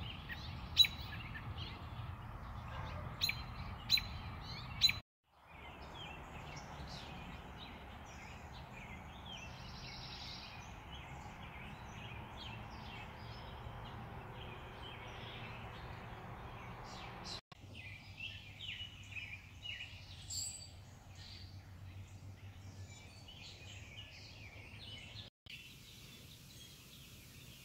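Outdoor ambience with birds: a few sharp, high chirps in the first five seconds, then a steady background hum with scattered birdsong that grows busier about two-thirds of the way in.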